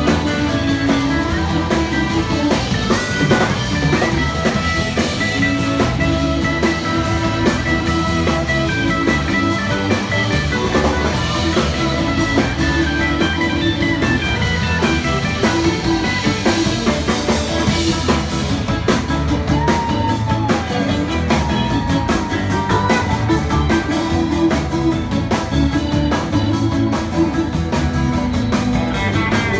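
Live rock band playing an instrumental passage without singing: electric guitar over keyboard and drum kit. About two-thirds of the way through, one note slides up and back down.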